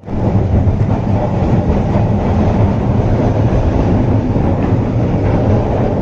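Kolkata tram running along its street rails, heard from inside the carriage: a loud, steady rumble of the wheels and running gear.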